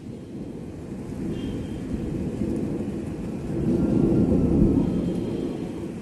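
A low rumble of thunder that builds to its loudest about four seconds in and then fades.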